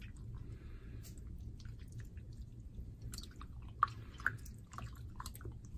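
Faint wet squelching and small splashes of a piece of raw meat being squeezed and rinsed by hand in a bowl of water, a scatter of short irregular squishes and drips.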